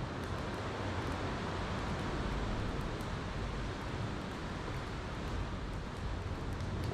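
Steady wash of ocean waves breaking, with a few faint crackles from a campfire.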